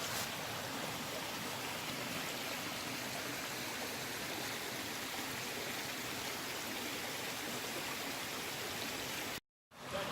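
Steady rush of running water from a creek or falls, even and unbroken, cutting out abruptly for a moment near the end.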